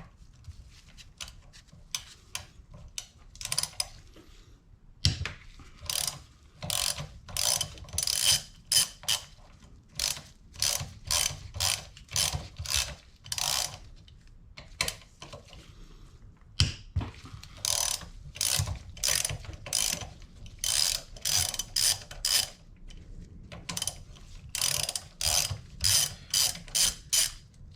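Hand ratchet clicking in quick runs of strokes with short pauses between them, loosening bolts on the 1983 Porsche 911's steering rack.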